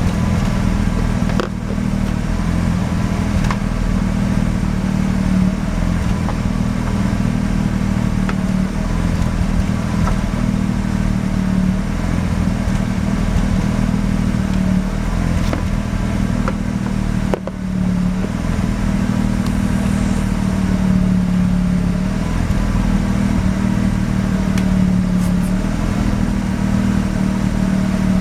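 Mazda RX-7 FD's 13B twin-rotor rotary engine idling steadily, dipping briefly twice. It is running with the rough, shaky idle and misfire that the owner is chasing.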